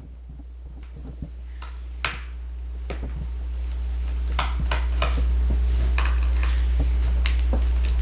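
Scattered small clicks and clinks of a Phillips screwdriver and loose screws against a laptop's plastic bottom case as its back screws are taken out, about ten in all. Under them runs a low steady hum that grows louder over the first five seconds and then holds.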